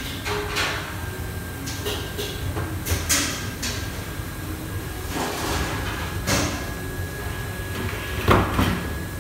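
Stainless steel pans and trays clattering and knocking now and then over a steady low rumble of kitchen ventilation, with a thin steady whine; the loudest clatter comes near the end.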